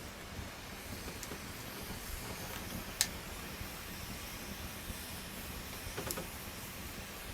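Campfire burning with a steady hiss and a few sharp pops of wood. The loudest pop comes about three seconds in, and there is a small cluster of crackles about six seconds in.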